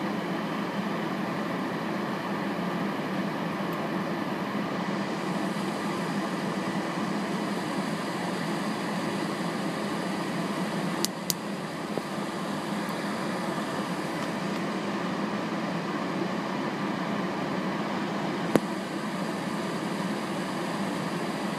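Steady machine hum throughout, broken by fingertip taps on a car windshield: two quick sharp taps about eleven seconds in and a single tap a few seconds before the end.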